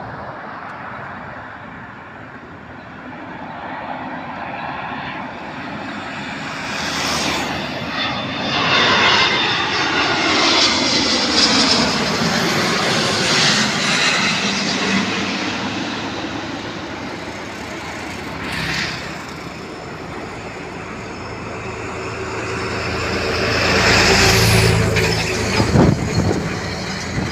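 Airbus A350-900 jet airliner on landing approach, its Rolls-Royce Trent XWB turbofans swelling to a loud roar as it passes low overhead, with the whine falling in pitch as it goes by. The roar eases, then swells again, deeper, near the end as the aircraft is on the runway.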